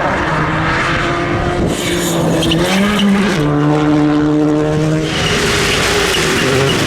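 Rally car engine running hard at high revs. Its pitch holds, climbs, then drops sharply about halfway through at a gear change.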